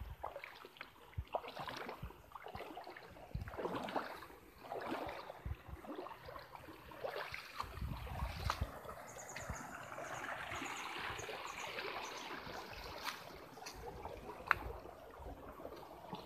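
Footsteps crunching and rustling through dry leaf litter and low plants, over the trickle of a creek's running water.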